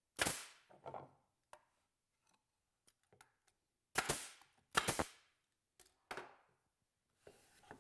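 Staple gun firing 1¼-inch staples to face-staple plywood parts together: three sharp shots, one near the start and two close together about four seconds in, with a few lighter knocks in between and after.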